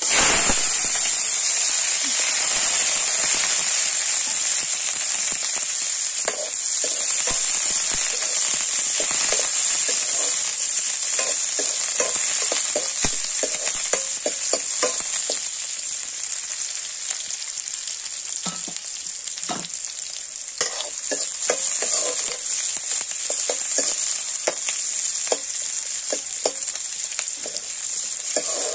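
Onion pieces sizzling in hot oil in a wok, the hiss starting suddenly as they drop in. A metal spoon stirs them, with frequent clicks and scrapes against the pan.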